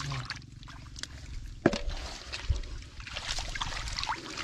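Hands groping and splashing in shallow, muddy ditch water, with scattered small splashes and one sharp splash about a second and a half in.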